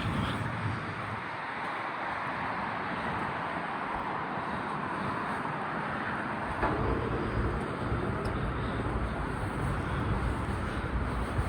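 Steady outdoor traffic noise, with a deeper rumble joining about seven seconds in.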